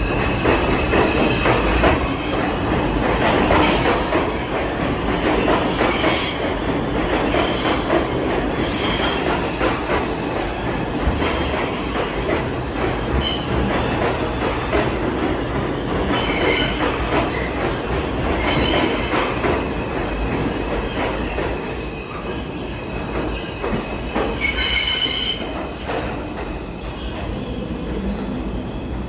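R142 subway train pulling out of an underground station and running past the platform, a steady noise of steel wheels on rail with several brief high wheel squeals. The noise eases slightly near the end as the last car goes into the tunnel.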